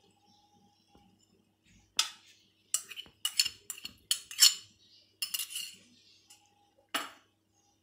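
Metal kitchenware clinking against an aluminium cooking pot: a cluster of sharp clinks and knocks from about two seconds in, and a single one near the end.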